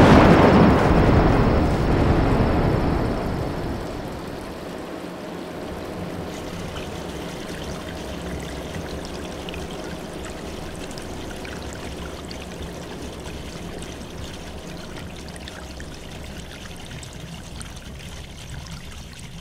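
The tail of a big explosion sound effect, very loud at first and rumbling away over the first three or four seconds. It gives way to a steady rush of water, like a stream pouring.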